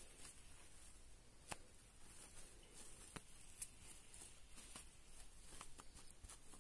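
Near silence with faint handling noise: soft rustling and a few light clicks as hands turn a plush teddy bear and its lace dress.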